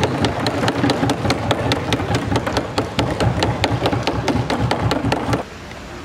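Many hands banging on wooden assembly desks in a fast, even rhythm of about four or five knocks a second, over a loud din of the hall, as a protest. It cuts off abruptly about five seconds in.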